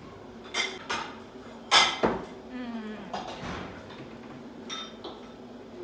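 Knocks and clinks of a fork and ceramic plate on a table, the loudest a sharp double knock about two seconds in, with a light scrape afterwards and a short ringing clink near the end.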